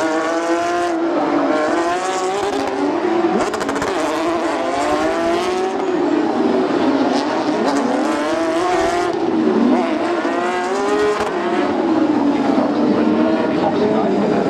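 Several Porsche 911 GT3 Cup race cars passing one after another, their flat-six engines overlapping, the pitch climbing as they accelerate and dropping back at each gear change.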